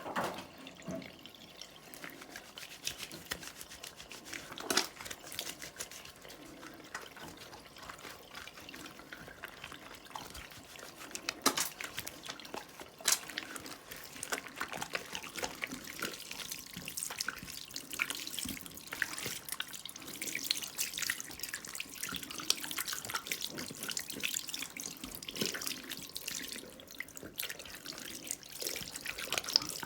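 Hands being washed under a running tap over a sink: water running and splashing unevenly, with irregular sharper splashes and drips.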